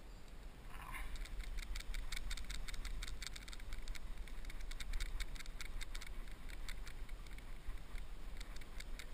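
Fly reel's click drag ticking rapidly and unevenly as the spool turns while a hooked trout is played, starting about a second in, over a low steady rumble.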